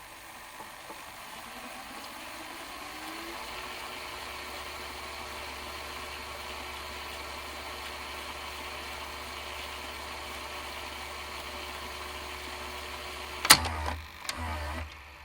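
VHS video cassette recorder's tape mechanism whirring: the motor spins up with a rising whir, then runs at a steady pitch with a low hum and hiss. Near the end comes a loud clunk, a brief further whirr, and the mechanism stops.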